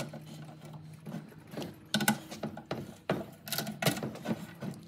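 Hand socket ratchet clicking in short runs of quick strokes as it drives bolts into a car's power window regulator.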